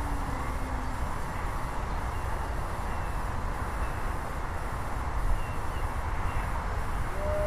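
Steady low rumble and hiss of outdoor air on the microphone, with the faint whine of a distant model airplane's motor sliding down in pitch and fading out in the first second. A low pitched call starts just before the end.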